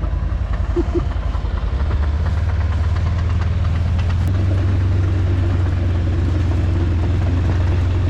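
Heavy earthmoving machine running close by during root raking, a steady low engine rumble with clattering over it. The engine note grows louder and deeper about two seconds in, as if put under load.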